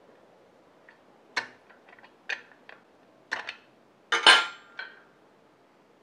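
A scattering of short metallic clinks and taps from the steel nuts, bolts and threaded-rod adjusting screw of a homemade ball-bearing linear bearing as the adjusting screw is turned by hand. The loudest clink rings briefly a little past four seconds in.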